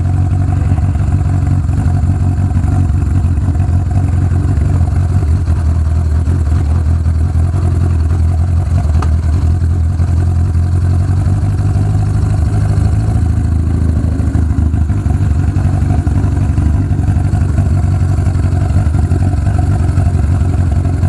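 1980 Kawasaki KZ1000's inline-four engine running steadily as the motorcycle rides over a rough dirt road.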